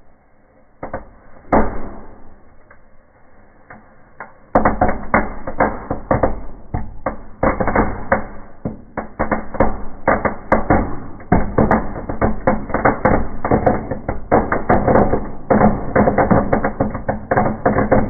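Fountain fireworks ('volcanoes') burning in a wood fire: a few sharp cracks, then from about four and a half seconds in, a loud, dense, rapid crackling that keeps going.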